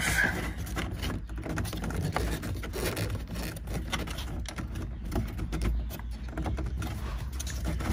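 Plastic steering-column trim around the turn-signal stalk being worked loose by hand: scattered small clicks, knocks and scrapes of plastic.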